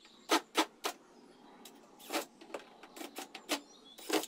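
Cordless drill driving screws into the back panel of a wooden dresser, in short bursts: three in quick succession about half a second in, then several more spread through the rest.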